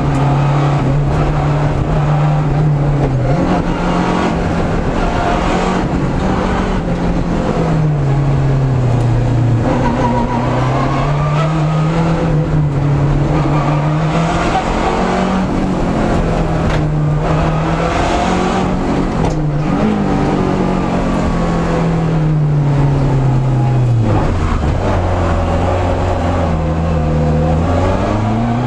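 Lancia Delta Integrale rally car's engine heard from inside the cockpit, driven hard on a test stage. The revs climb and drop again and again through gear changes and lifts for corners, over a constant din of road noise. About three-quarters through the engine holds a lower, steady note, then picks up again near the end.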